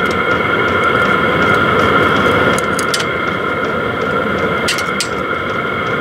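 Vevor diesel air heater running, its exhaust blowing through the supplied muffler, a spring-cored chamber packed with fiberglass: a loud steady rushing drone with a high whine on top and a few sharp ticks. The muffler knocks the noise down only some.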